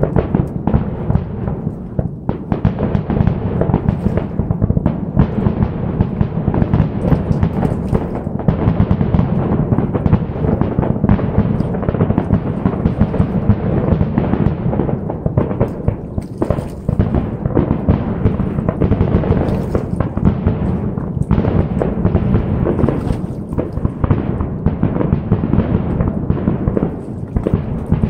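Aerial fireworks going off in a rapid, continuous barrage, booms and crackles following each other so closely that they run together with no pause.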